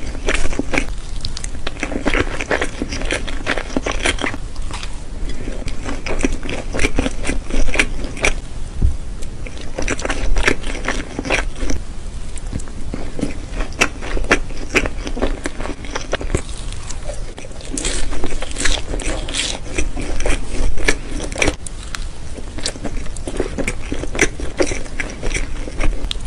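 Close-miked chewing and wet mouth sounds of someone eating forkfuls of soft pancake with whipped cream: a steady run of smacks and clicks, now and then the scrape of a fork.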